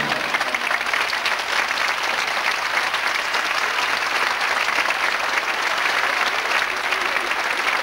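Large audience in an arena applauding steadily, a dense even clatter of many hands clapping.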